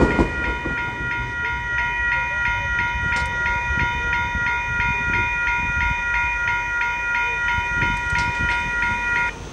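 Level-crossing warning bell ringing rapidly, about three to four strokes a second, while the boom arms rise after the train has cleared; it stops abruptly near the end as the booms come up. A fading low rumble of the departing train lies under it.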